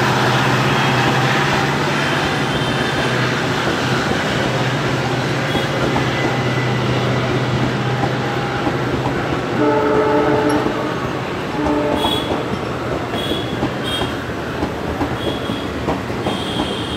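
Passenger coaches of a diesel-hauled express train passing at speed close by: a steady rush of wheel and air noise with the wheels clattering over the rail joints. A low drone fades in the first few seconds. A horn sounds twice, briefly, around the middle.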